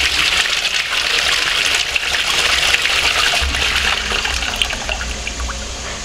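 Wall-mounted Twyford Sola toilet flushing: water rushes into the ceramic bowl from the inlet at the top and swirls down the drain. The rush eases off a little over the last couple of seconds.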